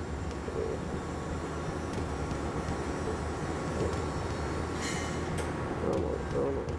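Gas tungsten arc (TIG) welding arc running steadily: a constant hiss over a low hum.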